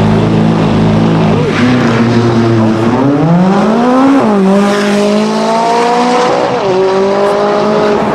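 McLaren 570S twin-turbo V8 running at steady revs, then accelerating hard with the engine note climbing and two quick upshifts, about four and nearly seven seconds in.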